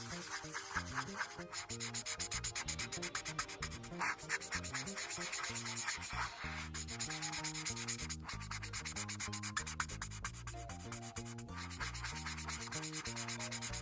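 Ohuhu Honolulu marker tip scribbling on paper in quick back-and-forth colouring strokes, several a second, with brief pauses between runs.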